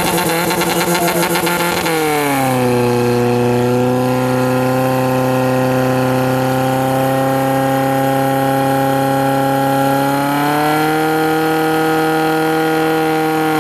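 A portable fire pump's petrol engine runs hard as it pumps water. Its pitch drops about two seconds in, holds steady, and rises again about three-quarters of the way through.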